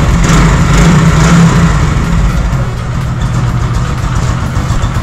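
Hero Glamour BS3's 125cc air-cooled single-cylinder four-stroke engine running with its thumping exhaust note, a little higher and louder for the first second or two, then settling to a steady idle.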